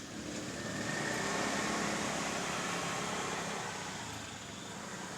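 A passing motor vehicle: a broad engine and road noise that swells, holds for a couple of seconds, then fades.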